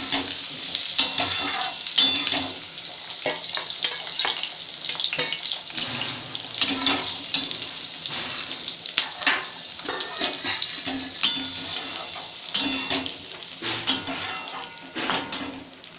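Cashews, raisins and fried vegetables sizzling in hot oil in a metal kadai. A metal spatula scrapes and knocks against the pan at irregular moments as they are stirred.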